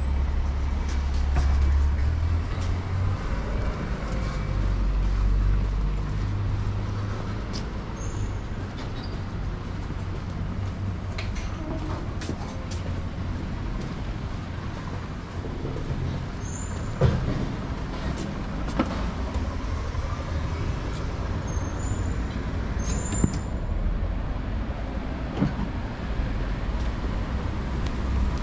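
City street traffic: road vehicles running past, with a deep engine rumble strongest in the first few seconds and a scattering of sharp clicks and brief high squeaks.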